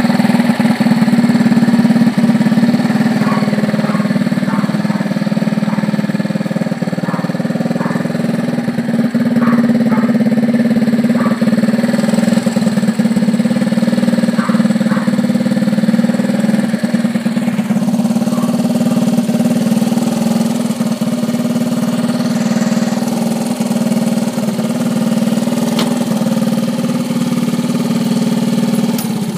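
1973 Honda C50's 49cc four-stroke single-cylinder engine idling steadily.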